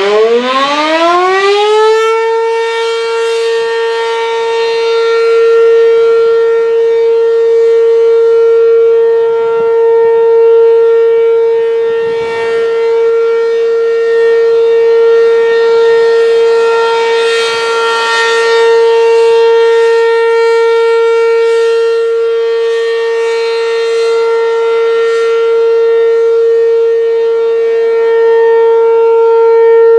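ASC RM-127 eight-port outdoor warning siren sounding the Alert signal: it winds up, rising in pitch over the first couple of seconds, then holds one loud steady tone that slowly swells and fades in loudness.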